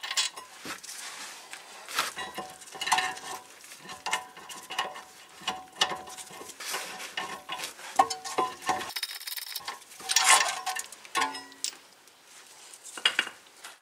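Loose metal parts clinking and scraping as the rear brake caliper bracket of a Toyota Corolla and its bolts are worked free and lifted off. There are many irregular sharp clinks, several with a short metallic ring.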